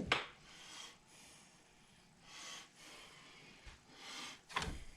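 A person's faint breathing and sniffs close to the microphone, several soft breaths over a few seconds.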